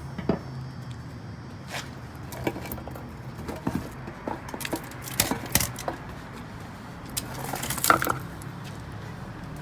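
Irregular metallic clanks, knocks and scrapes from heavy pieces of a split cast iron electric motor being handled and pulled apart. They come in a cluster about five seconds in, and the loudest comes near eight seconds in.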